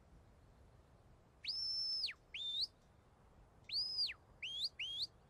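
Sheepdog handler's whistle commands to a working collie. First a long, high held note that swoops up at the start and drops at the end, then a short upward flick. Later comes an arched note, followed by two quick upward notes.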